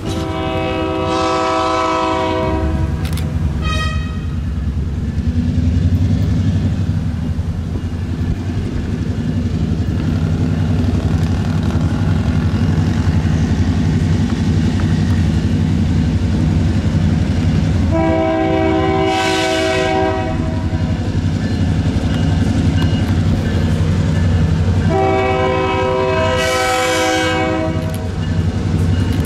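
Diesel locomotive sounding its air horn, a chord of several tones, over the steady rumble of its engine. There is a long blast and a short one at the start, then long blasts about two-thirds through and near the end.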